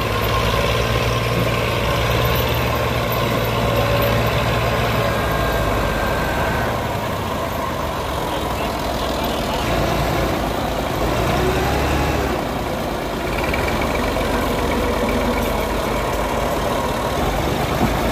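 Diesel tractor engines idling and running steadily, a Massey Ferguson 240 among them; the engine note shifts a few times.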